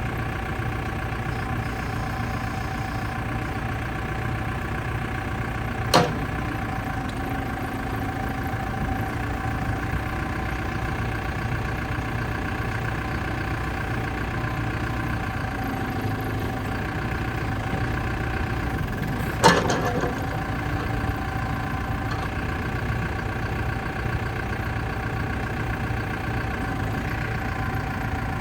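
New Holland B95 loader backhoe's diesel engine idling steadily, with a steady whine over the engine note. Two sharp knocks cut through, one about a fifth of the way in and another about two-thirds of the way through.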